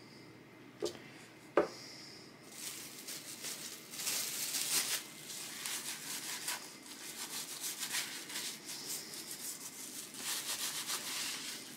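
Hands rubbing decoupage paper flat onto a wooden bunny cutout, with a crumpled plastic bag rustling and crinkling against it. There are two light taps about a second in, and the irregular rustling follows from a couple of seconds in.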